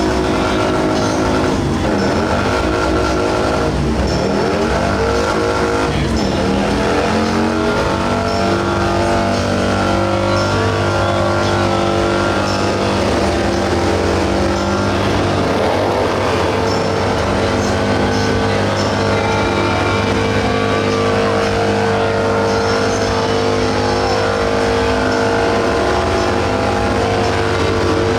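Motorcycle engine revved hard in three quick rise-and-fall blips over the first six seconds, then held at a steady high rev for the rest of the time.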